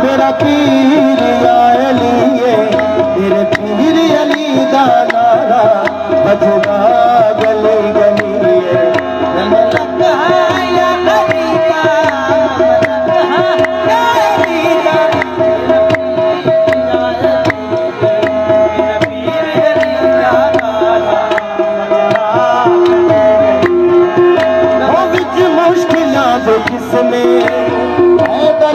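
Live qawwali: harmoniums sustaining a steady drone note under the wavering voices of the singers, with a running beat of hand-drum strokes.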